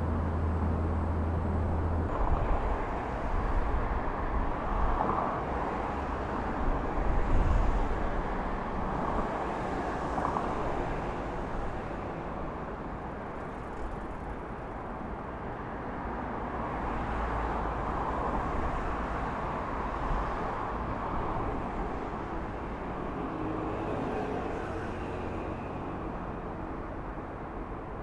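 Steady wash of road traffic noise that swells and eases as vehicles pass, with a low hum that stops about two seconds in.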